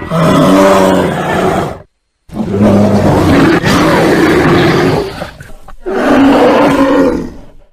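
Bear roaring: three long, loud roars of about two to three seconds each, with a wavering pitch, separated by short abrupt silences.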